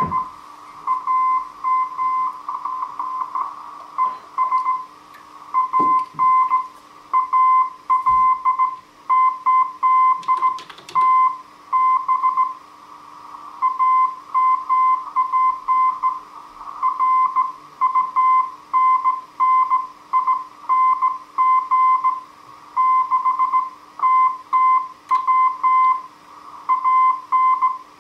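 Slow Morse code (CW) from a Heathkit HW-101 transceiver: a single tone of about 1 kHz keyed on and off in dots and dashes, with band hiss around the tone between characters.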